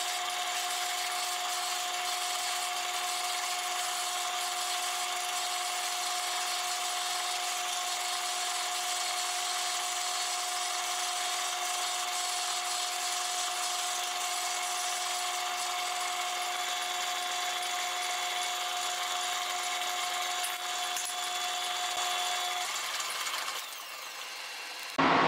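Metal lathe running while a twist drill in the tailstock chuck bores into a spinning naval brass gear blank: a steady machining noise with a steady whine. Near the end the whine stops and the sound drops as the drill comes out of the hole.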